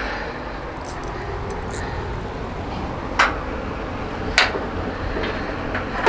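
Hand tools being handled: two sharp metallic clicks about a second apart, over steady background noise.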